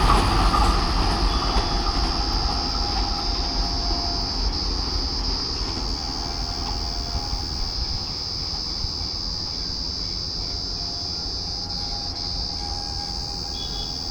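Vande Bharat Express train running on the track, its rumble and wheel noise dying away steadily, over a continuous high chirping of insects.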